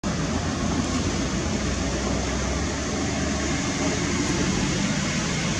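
Steady outdoor background noise: an even rushing hiss with a low rumble under it that eases off about four seconds in.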